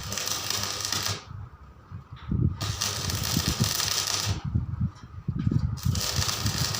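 Electric arc welding: three bursts of crackling hiss, each one to two seconds long, with short pauses between them.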